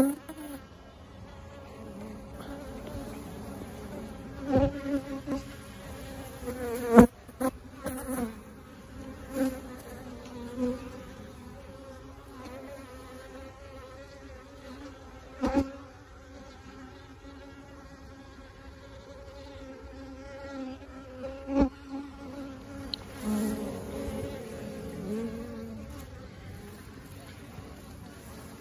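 Swarm of honeybees buzzing around a cluster on a brick wall: a steady hum, with single bees' buzz rising and falling as they fly close, near the end. Several sharp taps stand out above the hum.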